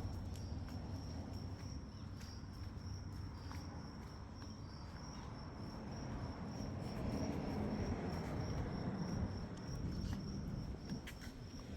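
An insect calling in a steady, high-pitched pulsing trill, with a low rumble and a few light clicks underneath.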